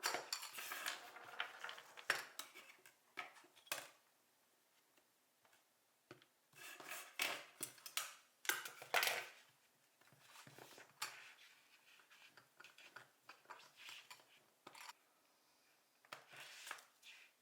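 Play-Doh and small plastic modelling tools being handled on a tabletop: irregular taps, clicks and scrapes that come in bursts, with short pauses between them.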